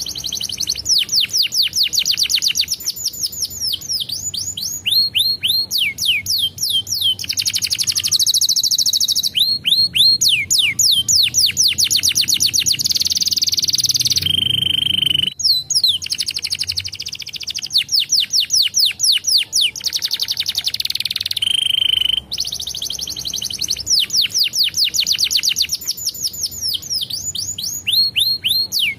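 Canary singing a long, fast song: rapid rolling trills of short downward-sweeping high notes, mixed with a few held whistles, broken by short pauses about halfway and again a little later.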